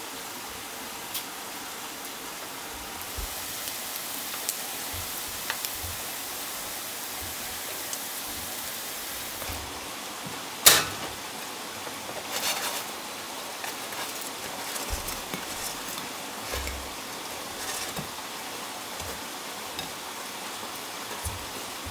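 Steady hiss of food frying in a wok, then a ceramic plate set down on a wooden table with one sharp clack about halfway through, followed by light clicks and taps as fried sausages are laid on the plate with chopsticks.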